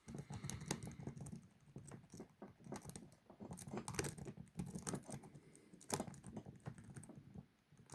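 Lock-pick rake working in the keyway of a Burg 40 mm padlock under a tension wrench: quick, irregular faint metal clicks and ticks as the pins are raked.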